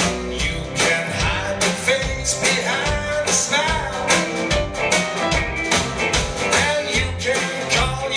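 Live rock band playing: drum kit keeping a steady backbeat under bass guitar, acoustic and electric guitars and keyboard.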